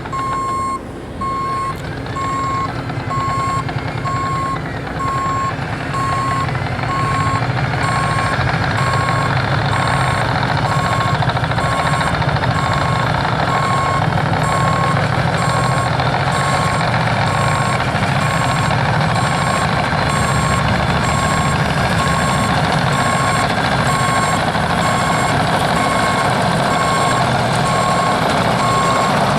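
Caterpillar D6N LGP bulldozer's reversing alarm beeping steadily and evenly while the dozer backs up, over its diesel engine running under load. The engine grows louder about seven seconds in.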